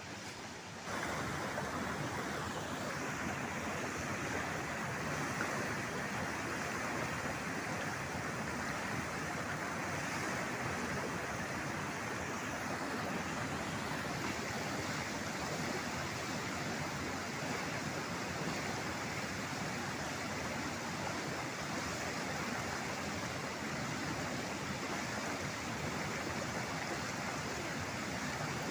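Steady rush of a waterfall and river rapids, growing suddenly louder about a second in and then holding steady.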